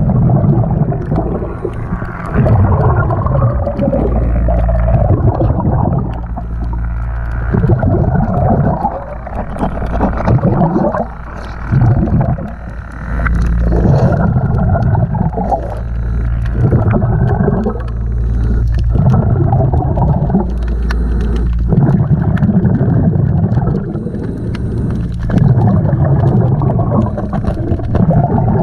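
Muffled underwater water noise picked up by a camera held beneath a boat hull: gurgling and rushing that swells and fades every second or two, over a low steady hum.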